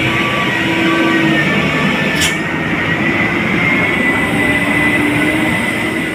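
Heavy diesel trucks climbing a steep hairpin bend, their engines running under load with a steady high-pitched whine. A short hiss comes about two seconds in.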